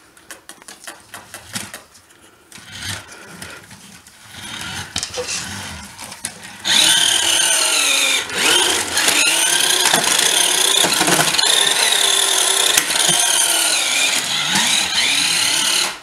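Toy remote-control car's small electric motor whining, starting suddenly about seven seconds in, its pitch rising and falling again and again as the car speeds up and slows. Before that, scattered light clicks and knocks.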